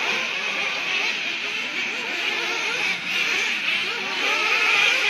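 Several radio-controlled off-road buggies racing on a dirt track, their small motors revving up and down as they run, overlapping.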